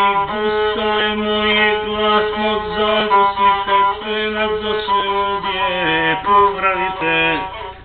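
Gusle, the single-string bowed Balkan folk fiddle, played as a warm-up: a melody moving in small steps around one main note, stopping shortly before the end.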